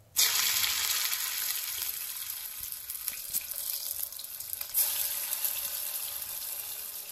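Bottle-gourd and gram-flour kofta balls sizzling in hot oil in a frying pan on a medium flame. The sizzle starts suddenly as they go into the oil, swells again about five seconds in, and slowly dies down.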